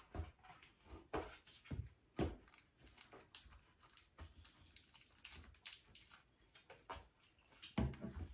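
Faint, scattered taps, clicks and rustles of monkeys handling small toys, with a few louder knocks near the end.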